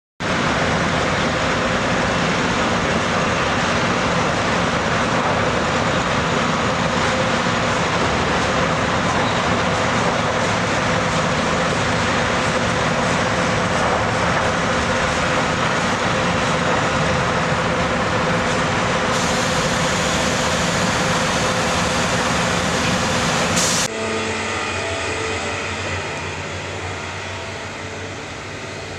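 A loaded log truck running steadily on the road, a loud, even rush of diesel engine and tyre noise with a faint steady hum. About three-quarters of the way through it cuts abruptly to a quieter, steady engine hum.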